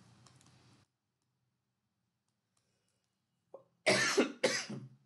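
Near silence, then about four seconds in a man coughs twice in quick succession into his hand.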